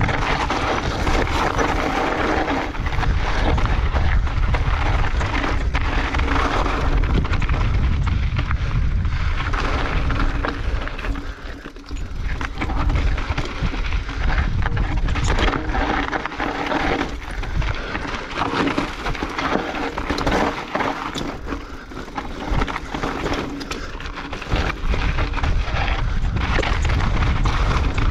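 Mountain bike riding down a rocky, gravelly trail: tyres grinding over rock and loose stones, with frequent knocks and rattles from the bike and wind rumbling on the microphone. The noise drops briefly about twelve seconds in.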